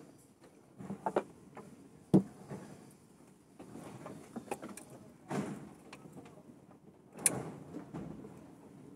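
Steel hand tools clicking and scraping on the valve rocker arms of a stopped engine as a tappet adjusting screw and its locknut are loosened and turned for valve clearance adjustment. There are several sharp metallic clicks, the loudest about 2 s in and another near the end.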